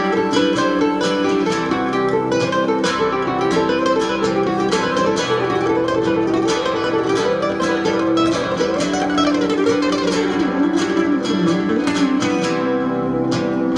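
Nylon-string electric-acoustic guitar playing an instrumental passage, plucked with the fingers, amplified.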